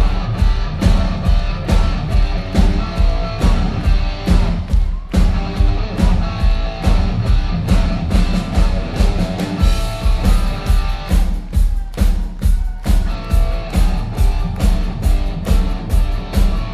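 Rock band playing live through a PA: electric guitars over a steady drum-kit beat.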